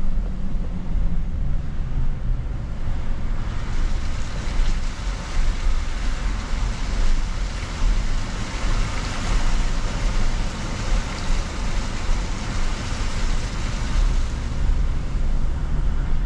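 Car driving along a flooded, water-covered road, heard from inside the cabin: a steady low rumble of engine and tyres. From about three seconds in until near the end, a hiss of water sprays up from the tyres.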